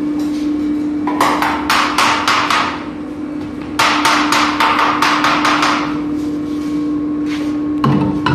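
Rapid hammer blows on metal in two runs, about four or five strikes a second, each ringing briefly, over a steady machine hum.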